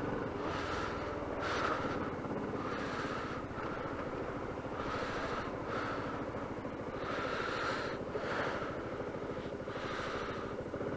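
Motorcycle engine running slowly, a steady low rumble with fine even pulsing, heard through a helmet-mounted microphone. Over it come short hissy puffs of breath close to the microphone, about one a second.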